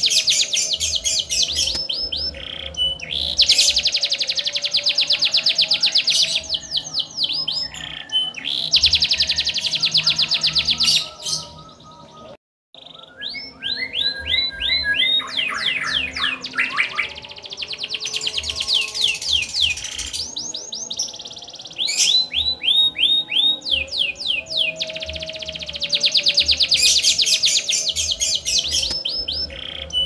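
Domestic canary singing long phrases of rapid rolling trills, each phrase a fast run of repeated high notes that changes note type from phrase to phrase. There is a brief break in the song about twelve seconds in.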